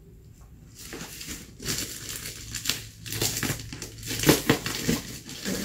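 Bubble-wrap packaging crinkling and crackling as it is cut with scissors and pulled open by hand, starting about a second in, with a few sharper snaps about four seconds in.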